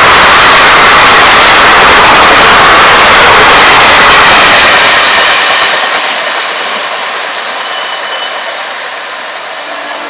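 Express passenger train's coaches rushing past at speed, a dense roar of wheels on rail. About five seconds in, the noise begins to fall away and thins to a fainter hiss as the last coach recedes down the line.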